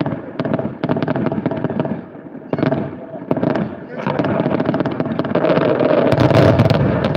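A fireworks display: rapid cracks and bangs of bursting shells. It thins out for a moment about two seconds in, then builds to a dense, continuous crackle near the end.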